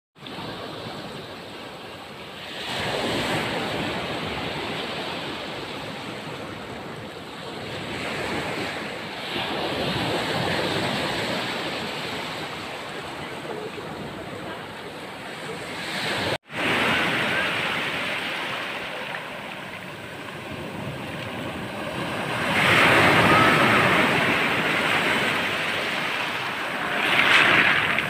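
Sea waves breaking and washing up over a pebble beach, the surf surging louder every five to seven seconds and easing between. The sound cuts out for an instant about halfway through.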